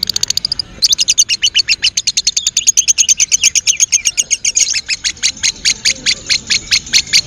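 Lovebird giving its 'ngekek', the long chattering trill: a short rapid burst, then a long run of sharp, high-pitched repeated notes, fast at first and slowing to a few a second near the end.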